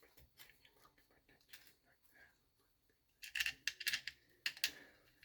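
Small metal engine parts clicking and clinking as they are handled and fitted, with a burst of sharper metallic clinks between about three and four and a half seconds in.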